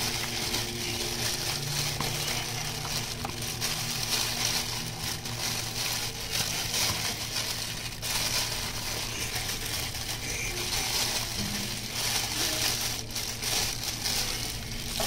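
Crinkling and rustling of a plastic produce bag being handled, with a faint steady hum of a running microwave oven underneath.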